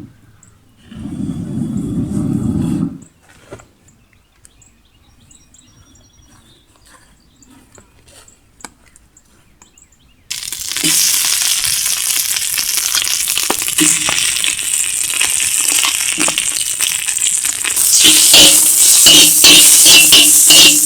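Food frying in hot oil in a large pan over an open fire: a loud sizzle that starts suddenly about halfway in and grows louder near the end, with clicks and scrapes from stirring. Before it, a brief low sound, then a quieter stretch with faint ticks.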